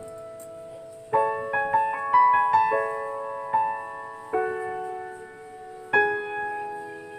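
Background music: a slow solo piano melody, notes and chords struck and left to ring and fade.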